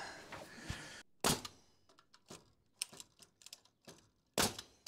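Framing nailer firing twice into the wall's top plate, sharp shots about three seconds apart, with light clicks and knocks of wood between.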